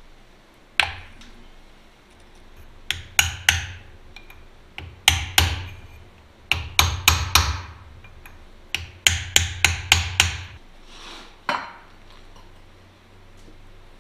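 Hammer striking steel at a truck's rear differential, in quick runs of three to six blows with a short metallic ring after each, about twenty blows in all.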